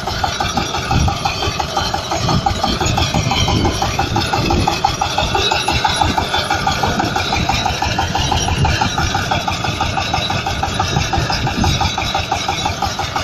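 Potato harvester at work: its engine running steadily with a fast, even pulsing.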